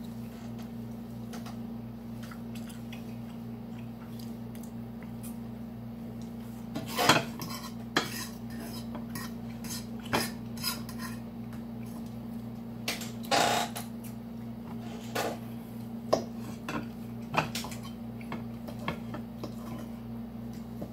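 Metal fork clinking and scraping against a plate in scattered, irregular strikes, loudest about a third of the way in and again near the middle, over a steady low electrical hum.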